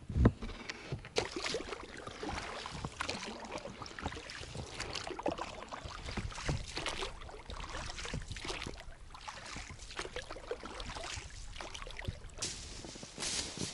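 A small boat being rowed: irregular water splashes and knocks.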